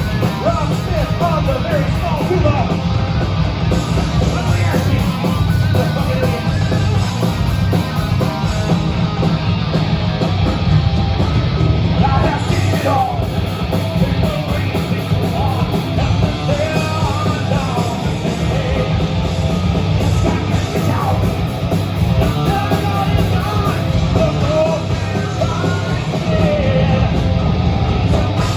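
Live band playing a loud rock song with accordion, dense and steady throughout.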